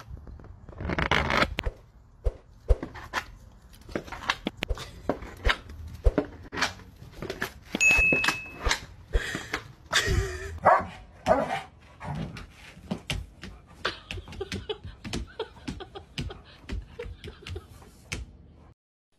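A dog's plastic cone collar knocking and scraping against steps and a door as the dog tries to push through: a long run of irregular knocks and clicks, with some dog sounds among them. It all cuts off abruptly near the end.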